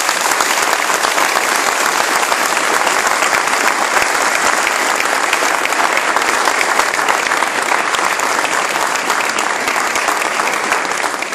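Crowd applauding: many hands clapping in a dense, steady spatter that eases slightly near the end.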